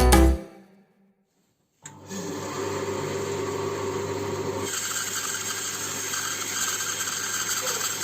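A woodworking power tool starts up and runs steadily; about halfway through its sound turns brighter and hissier, as when it starts working wood.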